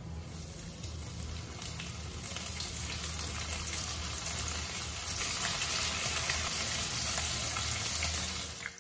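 Hot oil sizzling in a wok as flour-dusted sand whiting fillets are lowered in one after another for shallow frying. The sizzle grows steadily louder as more fillets go in.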